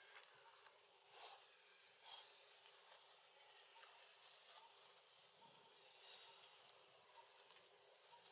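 Quiet outdoor ambience: a faint background hiss with a thin, high chirp repeating about once a second.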